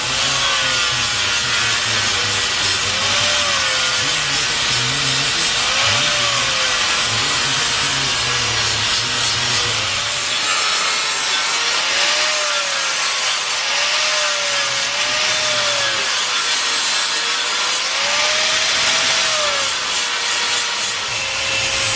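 Angle grinder grinding down welds on steel square tubing, running steadily for the whole time. Its motor pitch dips and recovers over and over as the disc is pressed into the metal and eased off.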